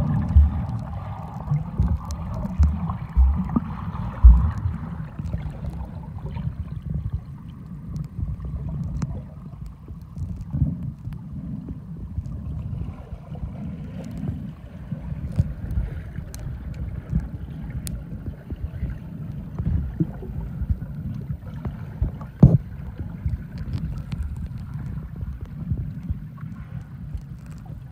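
Muffled underwater sound picked up by a camera held below the surface while snorkeling: a low, steady rumble of moving water with irregular thumps, several in the first few seconds and a sharp one about 22 seconds in.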